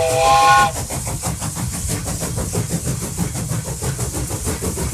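A handcrafted maple-and-pine wooden train whistle blown once, a short chord of several tones lasting under a second. After it comes a steady, rapid rhythmic noise at a lower level.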